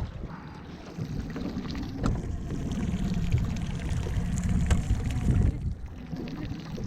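Low, uneven rumble of wind and water around a small fishing boat, with a few light knocks about two and four and a half seconds in.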